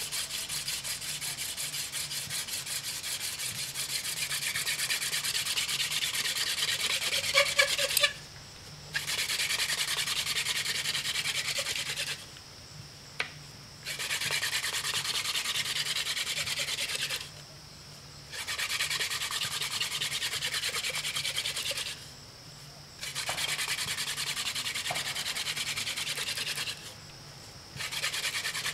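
Hand drill friction fire: a wooden spindle spun rapidly back and forth between the palms, drilling into a wooden hearth board with a fast, rhythmic rubbing. The rubbing comes in runs of about four to five seconds, broken five times by a brief pause as the hands go back to the top of the spindle.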